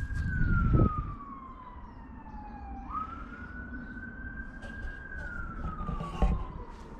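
Emergency vehicle siren on a slow wail: a single tone that falls slowly, sweeps quickly back up about three seconds in, holds, and falls slowly again. Low rumble on the microphone in the first second.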